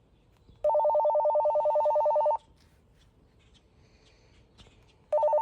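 Walkie-talkie call tone: a rapid two-note warbling ring that sounds for nearly two seconds, stops, then starts again near the end.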